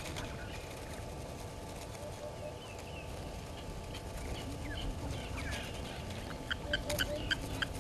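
Wild birds chirping in short scattered notes over a steady low outdoor rumble. Near the end comes a quick run of sharp, clicking calls, about five a second.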